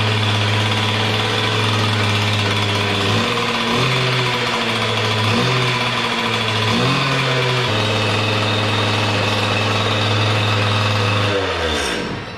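Freshly rebuilt Makita EK8100 two-stroke demolition saw idling. Its speed wavers up and down for a few seconds in the middle, then steadies, and near the end it winds down and stops. The engine runs well, but the idle is set high.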